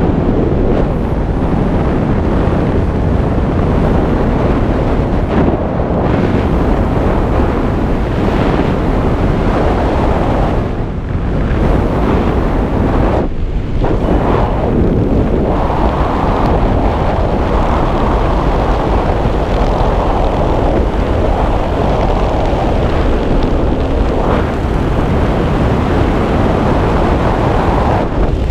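Wind rushing over the microphone of a camera worn by a skydiver descending under an open parachute: a steady, loud rush with a couple of brief lulls near the middle.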